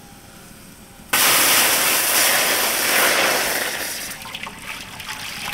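Water poured into a cooking pot to start the sugar syrup: a sudden loud gush about a second in that eases off over the last couple of seconds into a trickle.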